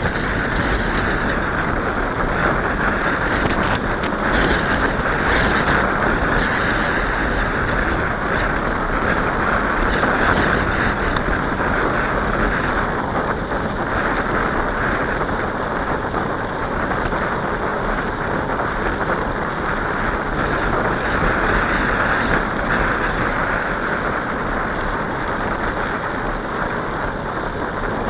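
Steady rushing noise of a bicycle ride: wind on the microphone and tyres rolling on the path.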